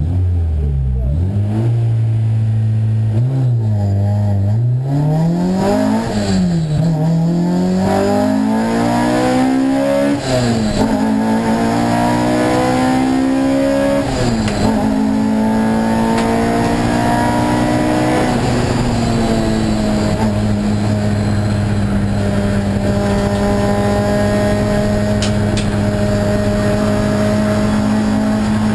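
Race-prepared EG Honda Civic's 1.8-litre four-cylinder engine, heard from inside the cabin, revving hard under load. Its pitch rises and falls several times in the first ten seconds or so, climbs in two longer sweeps, then holds one steady high note from about twenty seconds in.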